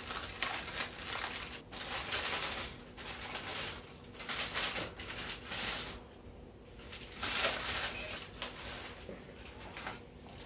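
Aluminium foil crinkling and rustling as it is unfolded and peeled back from a smoked minced-meat roll, in several bursts with short pauses between.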